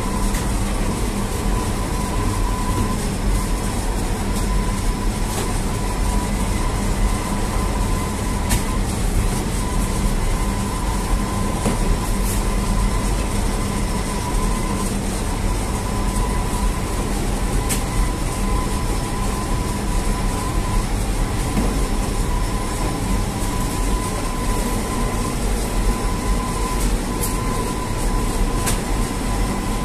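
Bakery oven and dough machinery running steadily: a constant low rumble and hum with a thin high whine, and a few sharp metallic clicks.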